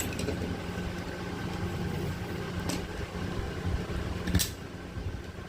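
Three short sharp clicks of the charger and cable being handled and plugged in, the last and loudest about four and a half seconds in, over a steady low background hum.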